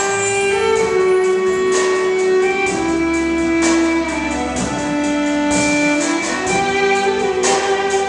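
Solo fiddle with a chamber string orchestra: a slow melody of long held notes that step down and back up, over sustained low bass notes, with sharp accents every second or two.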